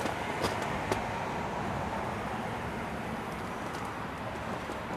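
Steady outdoor background noise, with a couple of faint clicks about half a second and a second in.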